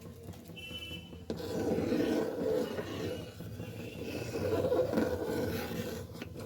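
Rice-flour dough being rubbed and scraped into small grain-like chushi pitha pieces, a steady rasping that starts abruptly about a second in.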